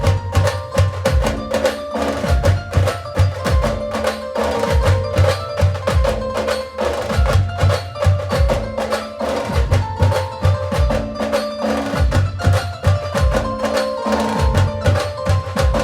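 Live Maharashtrian band playing an instrumental passage: a held melody line over fast, dense drum and percussion strikes.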